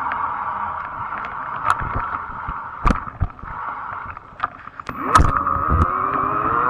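Ride noise on a fat-tire e-bike: a steady rush with several sharp knocks and rattles. About five seconds in, a motor tone comes in and rises in pitch.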